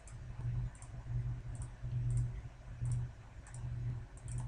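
Computer mouse clicking, about seven separate clicks a little under a second apart, as faces of a 3D mesh are picked one at a time. A steady low hum runs underneath.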